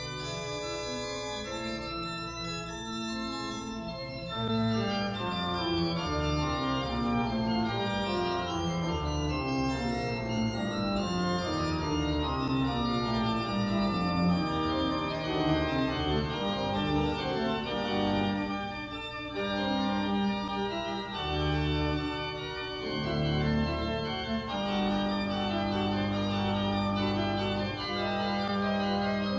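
Organ music: full chords over a line of notes stepping steadily downward, growing louder about four seconds in, then broader sustained chords over a held low note near the end.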